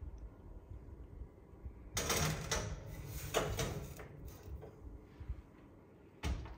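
Kitchen food-preparation handling sounds: about two seconds in, a run of scraping and rustling with a few light knocks, which fades out, and a short louder burst near the end before the sound cuts off.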